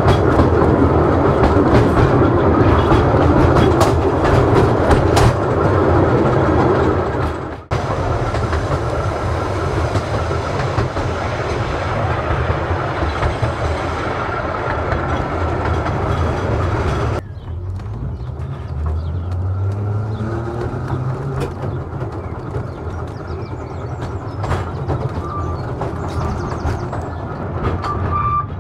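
Narrow-gauge heritage electric tram running along its track: a steady rumble of wheels on rail with repeated clicks. The sound dips sharply for a moment about seven and a half seconds in. At about 17 seconds it drops suddenly to a quieter, duller run.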